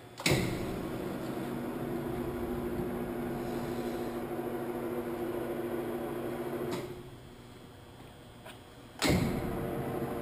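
Rapid traverse drive of a 1945 Blanchard 18-36 rotary surface grinder moving the magnetic chuck table out from under the wheel head. It starts with a clunk, runs with a steady hum for about six and a half seconds, then stops. After about two seconds of quiet it starts again with a clunk and hums on as the table is driven back in.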